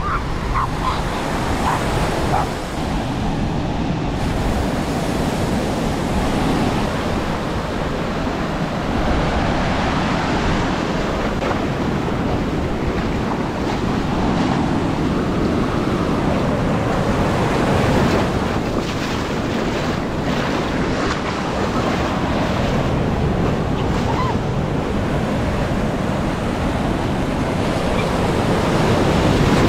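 Ocean surf breaking and washing up the shore in a continuous rush that swells and eases, with wind buffeting the microphone.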